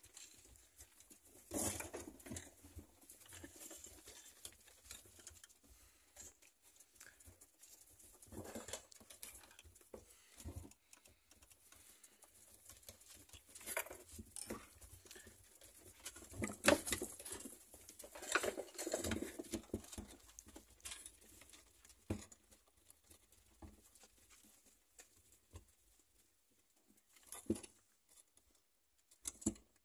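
Rabbits scuffling on a hay-strewn hutch floor: paws pattering and hay rustling in irregular short bursts as the buck goes after the doe to mount her.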